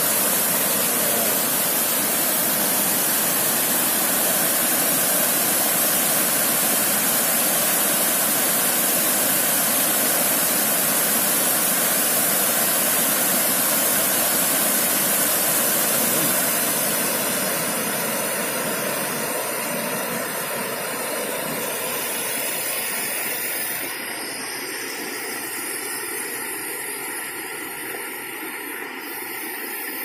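River water rushing over rocks: a steady hiss that eases somewhat about seventeen seconds in.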